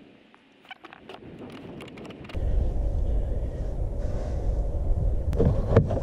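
Light metallic clicks of a wrench working a bolt. About two seconds in, a steady low rumble sets in, and sharper clicks come near the end.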